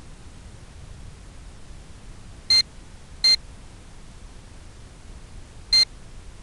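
Three short, high electronic beeps, two close together and a third about two and a half seconds later, over a steady static hiss.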